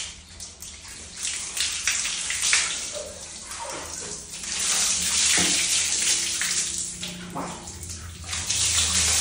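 Running shower water splashing on a tiled floor and over a wet dog's fur during a bath, rising and falling in level, loudest around the middle and again near the end.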